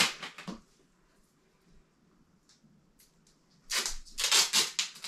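Adhesive tape being pulled off its roll in several quick, loud tearing pulls starting near the end, after a brief rustle at the start and a quiet stretch.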